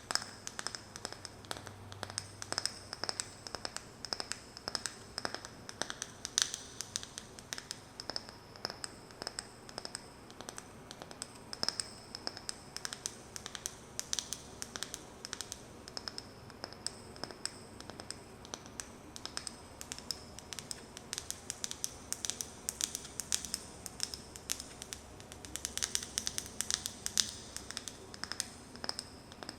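Fingernails tapping quickly and unevenly on a wooden lid, mixed with light scratching as the nails trace over the wood. The taps come thickest near the end.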